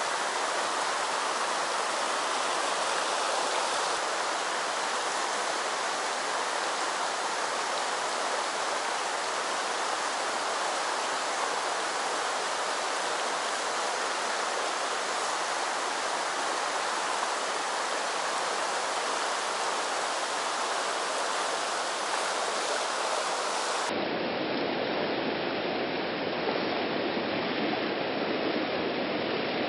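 Shallow mountain stream running over a cobble riffle: a steady rushing of water. It turns abruptly duller about 24 seconds in.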